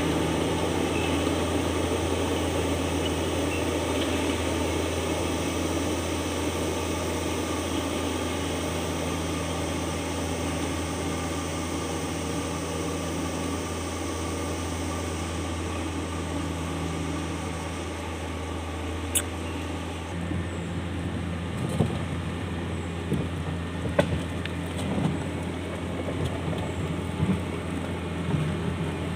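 Hitachi Zaxis 200 excavator's diesel engine running steadily, heard close from the machine itself, a constant low hum. In the second half, scattered knocks and clatters.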